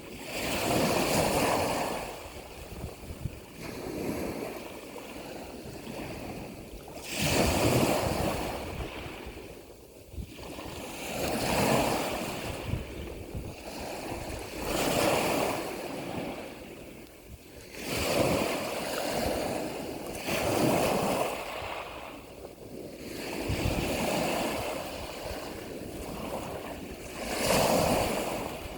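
Sea waves breaking and washing in, one surge every three to five seconds, each swelling up and then falling away.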